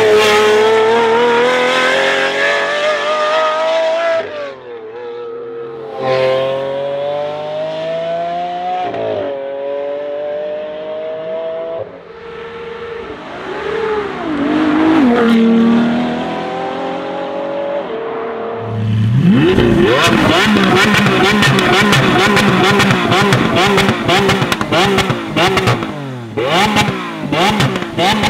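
Lamborghini Aventador V12 accelerating, its pitch climbing and dropping back at each upshift before it eases off. From about two-thirds of the way in it is loud and revved up and down in quick blips, with a rapid crackle from the exhaust.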